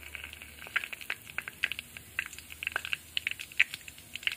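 Cumin seeds, bay leaves and whole dried red chillies sizzling in hot mustard oil in a kadai, with quick irregular crackles and pops: the tempering (tadka) stage of a curry.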